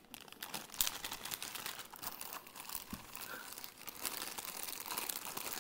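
Thin clear plastic bag crinkling and rustling in the hands as a plastic skull model is pulled out of it.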